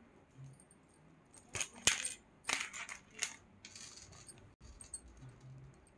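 Metal jewellery clinking and jingling as a gold-plated necklace is picked up and handled: a handful of sharp clinks between about one and a half and three seconds in, the sharpest near two seconds, then a softer rustle.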